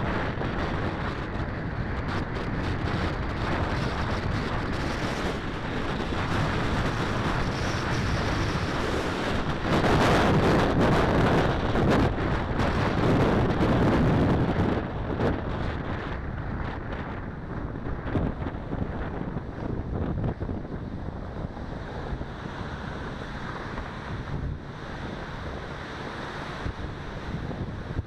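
Wind buffeting an action camera's microphone during a bicycle ride, a steady rushing noise that grows louder for a few seconds about a third of the way in, then eases off.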